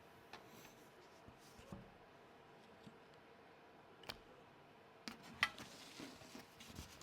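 Quiet room with a few scattered soft clicks and taps, which come closer together in the last two seconds.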